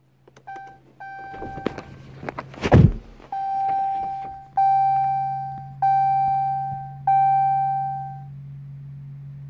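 Dodge Challenger dashboard warning chime sounding with the ignition on and the engine not yet running: two short dings, then four longer ringing chimes about a second apart, each fading away. A single heavy thump comes about three seconds in, and a steady low hum runs underneath.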